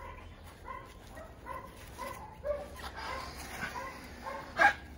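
Excited pit bull whining and yipping in short high cries about twice a second, then one loud bark near the end.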